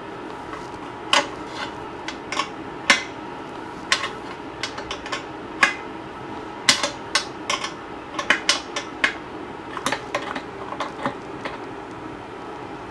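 Irregular metallic clinks and taps of a hand wrench and bolts being worked, over a steady low hum.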